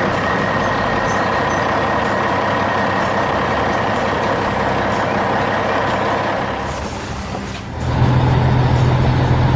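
Heavy construction-vehicle engine sound effects: a steady noisy running sound that dips about seven seconds in, then gives way to a louder, deeper steady engine drone.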